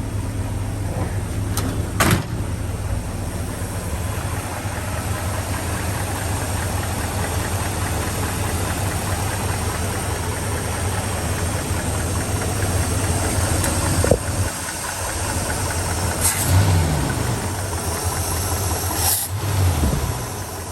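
Newly installed engine idling steadily with a light ticking, which is taken to be a lifter tick from a bad lifter.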